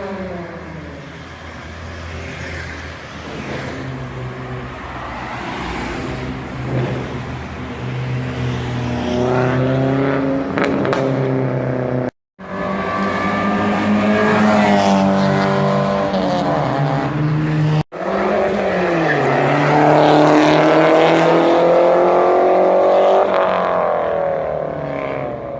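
Sports car engines revving and accelerating in three separate takes, the engine note climbing in pitch several times. The last take is the loudest.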